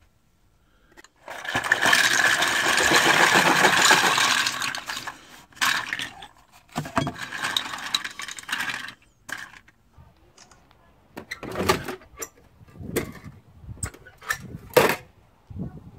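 A loud, dense clatter of many small plastic bottle caps tumbling onto a board, lasting a few seconds, then scattered clicks as the caps are pushed around by hand. Near the end come several separate sharp knocks and clanks as an old metal toolbox is opened and handled.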